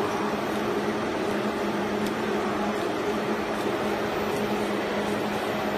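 Automatic hang-tag labelling machine running: its conveyor and label-head motors give a steady hum with a low drone under an even mechanical whir.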